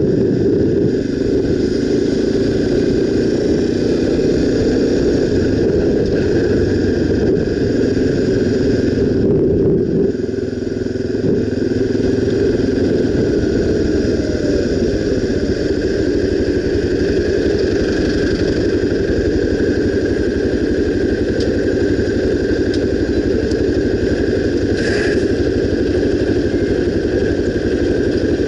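Honda XR 250 Tornado's single-cylinder four-stroke engine running steadily on the move, easing off briefly about ten seconds in.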